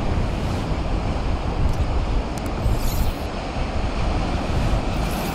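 Sea surf breaking on the shore, with wind buffeting the microphone: a steady rushing noise over a deep rumble.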